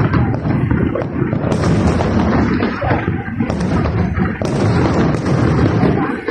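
New Year's Eve fireworks going off in a dense, continuous barrage of bangs and booms, with sharper cracks standing out now and then.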